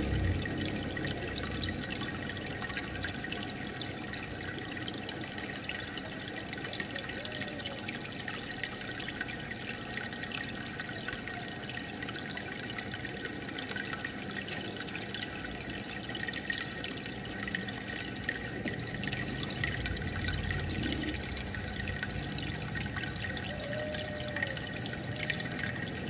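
Aquarium water bubbling and trickling from an air stone or filter, steady, with many small pops.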